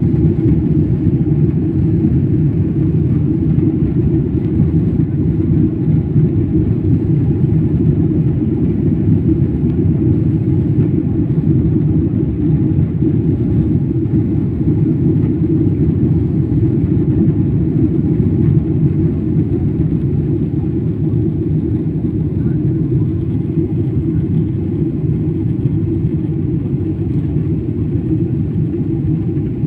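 Jet airliner taking off: a loud, steady low rumble of engines at takeoff power.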